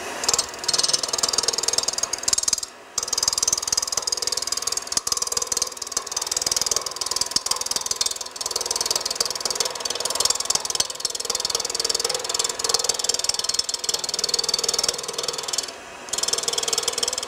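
Spindle gouge cutting the glued-on scrap block down on a spinning wood lathe: a steady, rapid chattering hiss of the cut, with two short breaks where the tool is lifted, about 3 seconds in and near the end.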